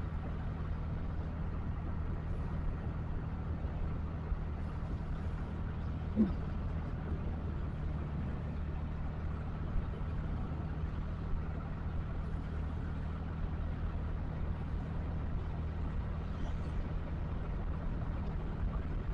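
A vehicle engine running at a steady speed, a constant low hum with road noise and no change in pace, plus one short rising chirp about six seconds in.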